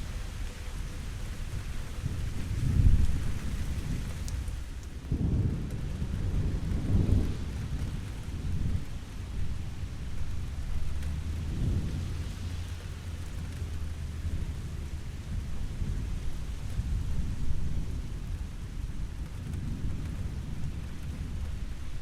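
Steady rain falling during a thunderstorm, with rolling thunder that swells and fades several times. The thunder is loudest about three and seven seconds in.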